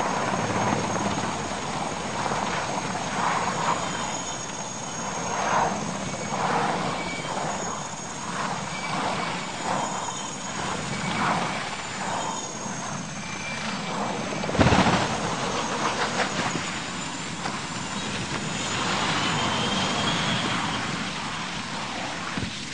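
Military transport helicopter's rotor and turbine noise as it hovers low over the ground, with one sudden loud impact about fifteen seconds in as it hits the ground.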